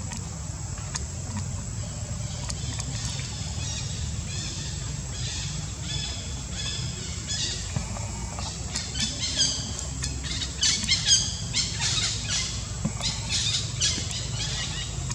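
Many short, high-pitched squealing calls in quick succession, growing thicker and louder about halfway through, over a steady low rumble.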